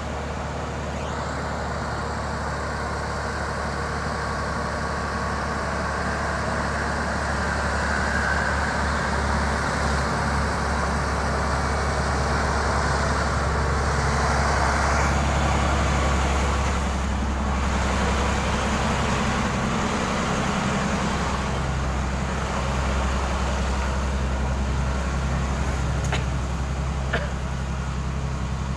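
Road traffic on a steep hill: a steady diesel engine drone, with a heavy dump truck passing close by about halfway through, where it is loudest.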